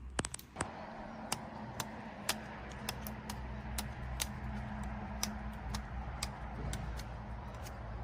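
Wood fire crackling: irregular sharp pops, one or two a second, over a steady hiss.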